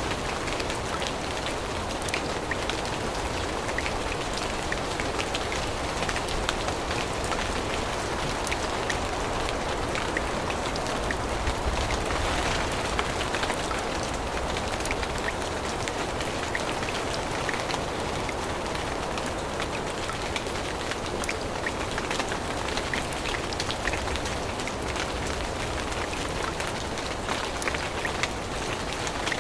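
Steady rain falling on forest leaves and ground, an even hiss dotted with many small, sharp drop ticks.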